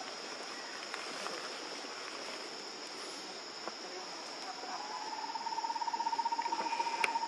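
Steady high-pitched drone of a forest insect chorus. About five seconds in, a lower call joins it, pulsing evenly several times a second.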